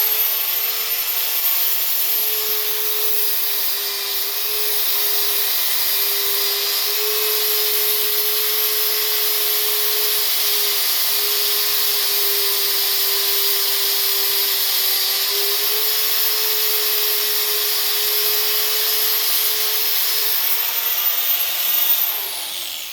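Bauer 1/2 x 18 in, 5.3 amp swivel-head bandfile belt sander running at speed with a steady high motor whine. Near the end it is switched off and the whine falls as it spins down.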